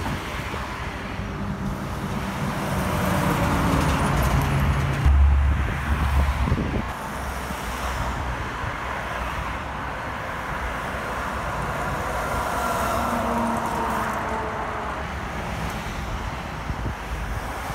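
Highway traffic: cars and trucks drive past with engine and tyre noise. A truck's diesel engine rises as it approaches and passes, loudest about five seconds in, then the traffic noise settles to a steadier level.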